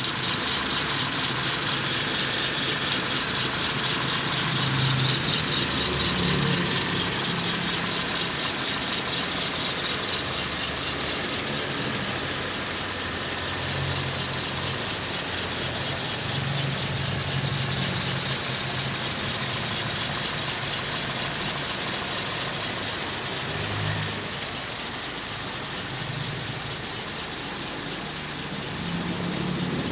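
Toyota Corona RT104 engine running steadily at idle.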